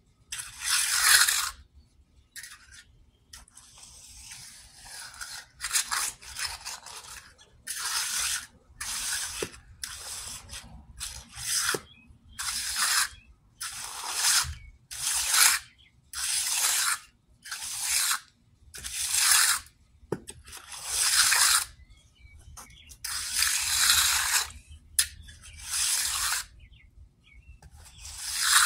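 Hand trowel scraping across wet concrete in repeated short strokes, roughly one a second, each a harsh hiss under a second long, as the slab edge is worked and smoothed.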